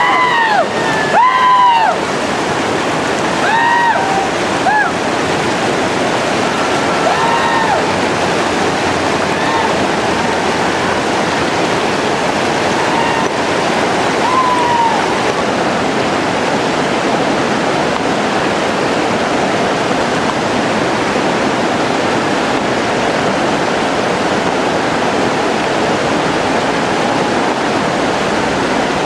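Whitewater river rapids rushing steadily. Over the water come several short rising-and-falling shouts from the rafters in the first five seconds, and one or two more around the middle.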